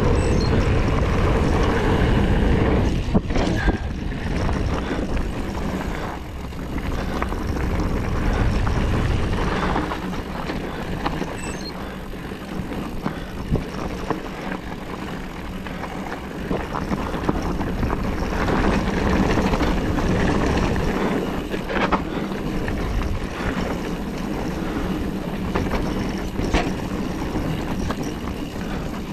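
Wind buffeting the camera's microphone and tyres rolling over dirt and gravel as a mountain bike rides down a trail, with scattered rattles and knocks from the bike over bumps.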